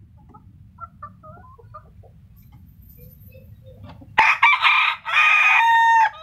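Ayam Arab (Silver Braekel-type) rooster crowing once, about four seconds in: a loud, broken crow that ends on a long held note. Before the crow there is only a faint low hum.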